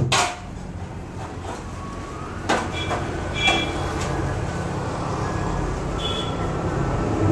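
Street traffic: a steady low engine rumble from passing road vehicles, growing louder toward the end as a vehicle comes closer, with a few sharp knocks and brief high squeaks over it.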